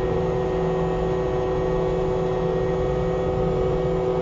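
Brush mower running steadily, a constant drone that holds one pitch throughout.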